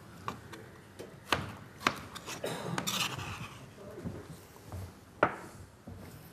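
Kitchen knife cutting peeled taro into cubes on a cutting board: a few sharp, irregularly spaced knocks of the blade hitting the board, with scraping and rubbing between them.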